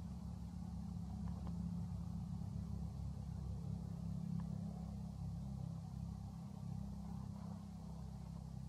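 Low, steady rumble of a motor vehicle engine running, with a few faint clicks.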